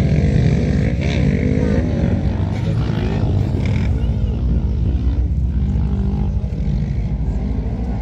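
Kart cross buggy engines, restricted Kawasaki ER-6 650 cc parallel twins, racing on a dirt track, their pitch rising and falling as the drivers accelerate and lift through the corners.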